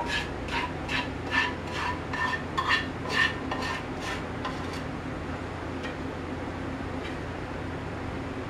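A metal spoon clinking and scraping against a pan while a mixture is spooned out over pineapple in a cake pan. There are about two or three clinks a second, each with a light ring, and they stop about halfway through.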